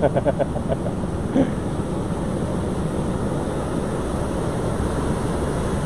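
Heavy storm surf breaking and washing up over a rocky shore: a steady, even rushing noise.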